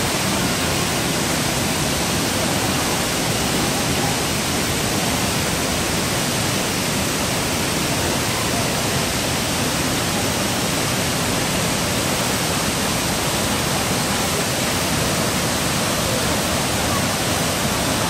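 A tall waterfall at full flow plunging into a pool: a steady, unbroken rush of falling water.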